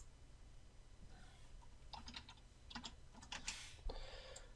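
Faint computer keyboard keystrokes: a few scattered key presses about two and three seconds in, with a short rustle near the end.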